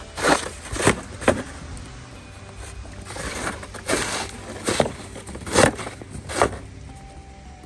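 Snow shovel scraping and chopping into hard, wet, packed snow in a run of short strokes, about seven in all, with a pause around the middle.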